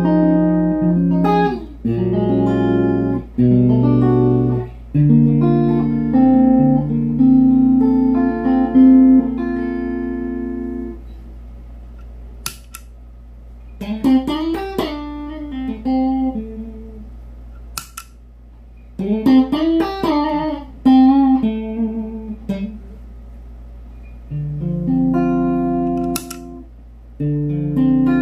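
Electric guitar played through a Caline Pressure Tank compressor pedal into a Supro Dualtone amp: chords held and left to ring, then single-note licks, then chords again. The pedal is engaged at first and switched to bypass before the licks. A steady low amp hum runs underneath, with a few sharp clicks.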